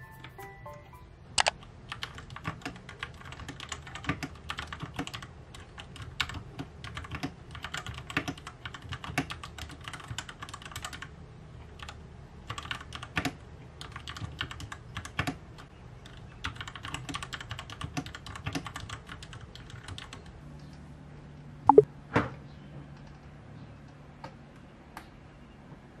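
Typing on an RK61 60% mechanical keyboard: quick runs of key clacks with short pauses, which stop about three quarters of the way through. A couple of louder knocks follow near the end.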